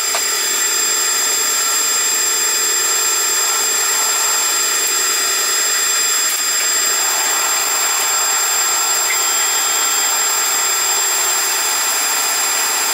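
Metal lathe running at steady speed, with a steady high gear whine of several tones over the noise of the spindle and drive, while a round form tool is plunged into the spinning steel workpiece.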